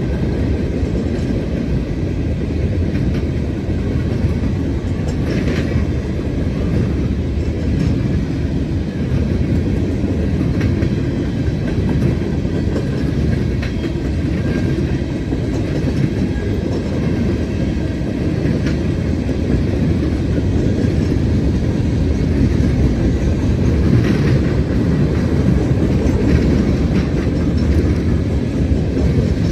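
Freight train of gondola cars rolling past at a steady speed: a continuous low rumble of steel wheels on rail, with a few faint clicks.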